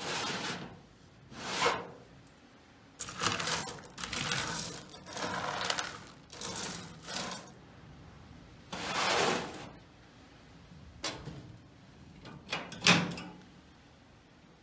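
A metal tray of in-shell pistachios rattling and scraping in a wood-burning cookstove's oven as it is handled, in several short bursts. Near the end the oven door clanks shut and its latch clicks.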